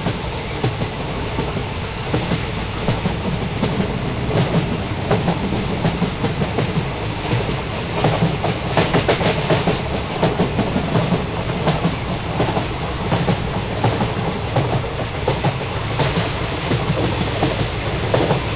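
Jan Shatabdi express train's coaches running past at speed, steady wheel clickety-clack over the rail joints with a dense rattle of clicks.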